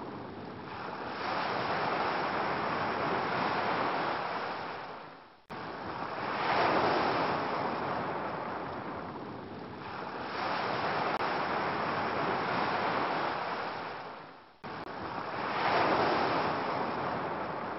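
Ocean surf, waves washing in and ebbing away in slow swells every few seconds. Twice, about five seconds in and near fifteen seconds, the sound fades almost away and then cuts straight back in.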